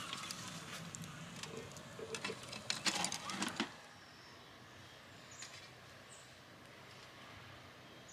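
Clicks and knocks of camp cooking gear being handled over a low steady hum, cutting off suddenly a little after three and a half seconds. Quiet outdoor background follows, with a couple of short bird chirps.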